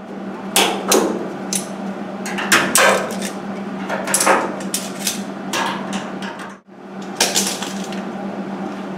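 Locking pliers (Vise-Grips) being unclamped from a tack-welded steel fender panel: a string of sharp metallic snaps and clanks as the jaws release and the pliers knock together, over a steady low hum.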